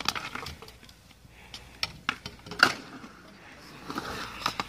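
Stunt scooter knocking and clattering against concrete: a series of sharp metallic clicks and knocks, the loudest about two and a half seconds in.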